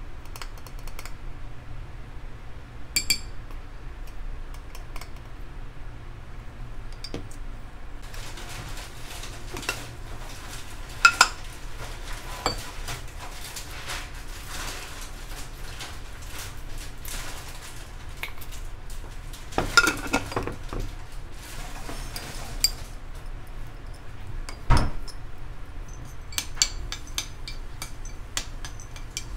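Cutlery and dishes clinking: scattered light clinks and taps of utensils against crockery over a steady low hum, with one heavier knock near the end.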